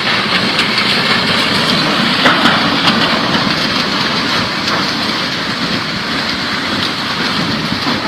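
Fast-moving floodwater rushing in a steady, loud roar, with a few faint knocks.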